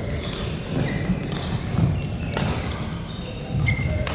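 Badminton rackets striking shuttlecocks on nearby courts: sharp cracks about once a second, with a few short high squeaks of court shoes on the floor mats, over the low hum of a large hall.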